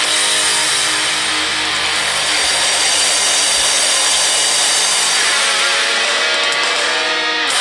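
Rock music, an instrumental outro: dense, harsh distorted electric guitar noise with held notes, loud and steady.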